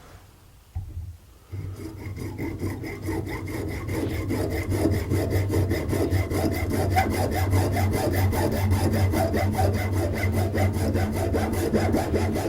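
Hand hacksaw with a metal-cutting blade sawing through a steering rack bushing clamped in a small vise: quick, even back-and-forth strokes that start about a second and a half in and keep going.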